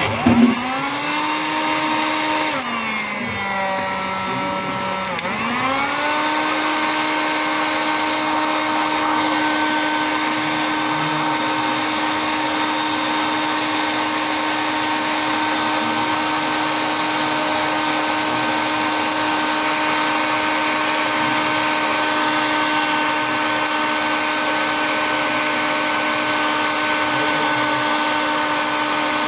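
Handheld hot air gun's blower motor switching on and spinning up to a steady whine as it blows hot air onto a hard-drive circuit board to melt the solder of its connector. The pitch sags a few seconds in, then rises back and holds steady.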